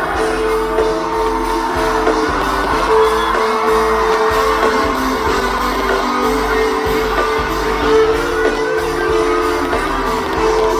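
Live pop/hip-hop concert music played loud over a festival sound system, with sustained synth notes, singing and scattered shouts and whoops from the crowd.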